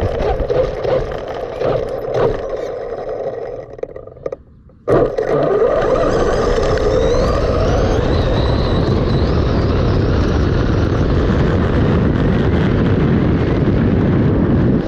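Loud rushing wind buffeting the microphone. A fading rumble in the first few seconds is followed by a short drop-out, then a steady, heavier rush starts suddenly about five seconds in.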